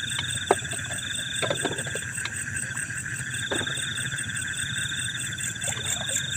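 Night chorus of crickets and other insects, a steady high trilling that pauses and resumes, with a few light knocks over it.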